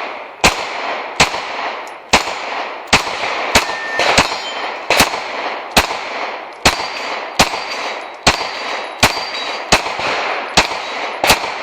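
Pistol shots fired one after another at a steady pace, about fifteen in all, roughly one every three-quarters of a second, each followed by a short echoing tail, with a faint ringing tone after some of them.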